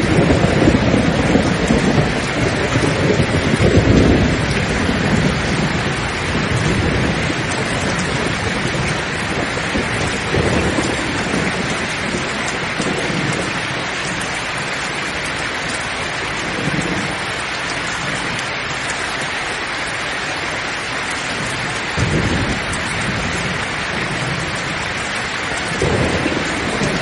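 Steady heavy rain with rolling thunder. The thunder rumbles loudest in the first few seconds and swells again several times later on.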